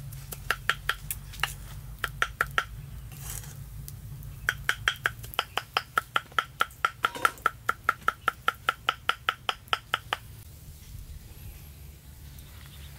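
Steel cleaver chopping garlic on a round wooden chopping board: quick strikes, each with a short metallic ring from the blade. A few short runs come first, then a steady run of about four strikes a second that stops about ten seconds in.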